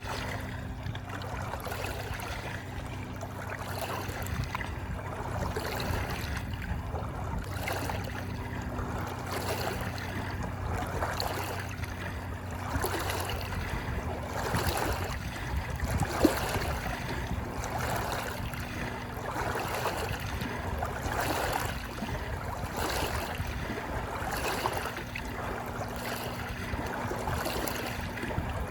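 Moving water in a steady wash, with a low steady hum underneath and one sharp knock about sixteen seconds in.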